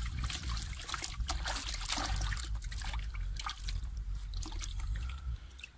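Water trickling and dripping off a wet cast net as it is handled, with small scattered clicks and rustles of the wet mesh over a steady low rumble. The sound drops away near the end.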